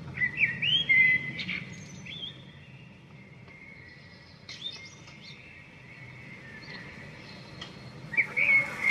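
Songbird singing outdoors in short whistled phrases with pauses between: one group of phrases near the start, another about halfway through, and another near the end.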